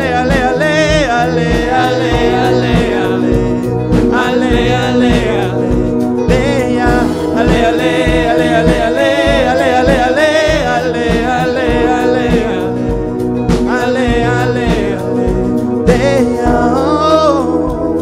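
A live band playing a pop song: a male singer's wavering, drawn-out vocal lines over a steady drum beat.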